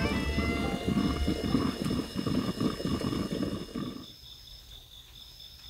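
The last notes of an intro music track ring out over a loud low rumbling noise, then about four seconds in it all drops away to quiet outdoor insects chirring, a steady pulsing high trill.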